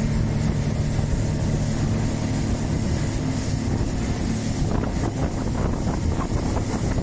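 Small motorboat's engine running steadily at speed, a constant low hum under wind buffeting the microphone and water rushing and splashing past the hull.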